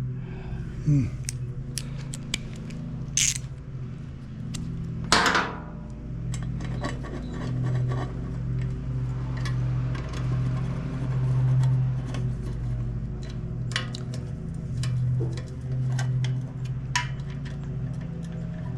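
A lawn mower engine running in the distance, its steady low hum swelling and easing every few seconds. Scattered sharp clicks and clinks of metal tools sound over it.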